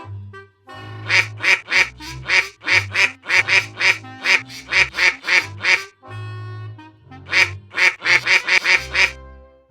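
Rapid runs of harsh, quack-like calls, about three or four a second, in two bursts with a short break between them. Music with a steady bass line plays underneath.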